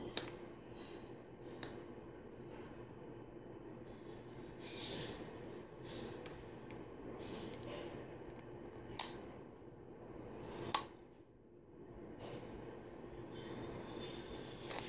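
Small plastic LEGO Technic parts and a sticker being handled by hand: soft scratchy rustling and light ticks, with two sharper plastic clicks a little under two seconds apart past the middle.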